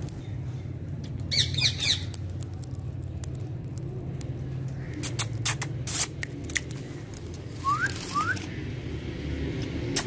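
Indian ringneck parakeet giving short squawky calls about a second in, then a run of sharp clicks around the middle as it perches on a steel bowl of sunflower seeds, and two quick rising chirps near the end. A steady low hum runs underneath.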